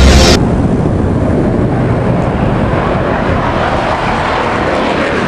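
Jet engine noise from an F-16 fighter taking off: a steady, fairly loud rushing noise with no clear tone, which starts abruptly just after a louder sound cuts off.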